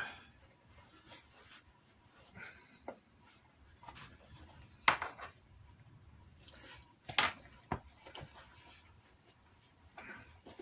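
Stiff 4–5 oz oiled Kodiak leather pouch being worked and turned inside out by hand: faint rubbing and creasing of the leather, with a few sharper clicks about five and seven seconds in.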